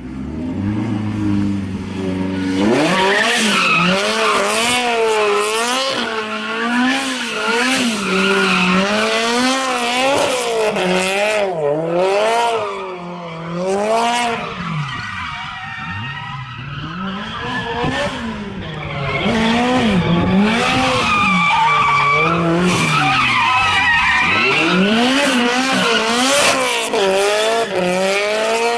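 Toyota AE86 Trueno drifting in a weaving manji, with its engine pitch rising and falling over and over as the throttle is worked and the tyres squealing and skidding. It eases off for a few seconds in the middle, then picks up again.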